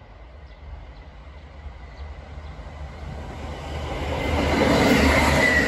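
Two-car KiHa 40 series diesel railcar train approaching: the rumble and wheel-on-rail noise build steadily and are loudest about five seconds in, with a thin high ringing tone as it draws level.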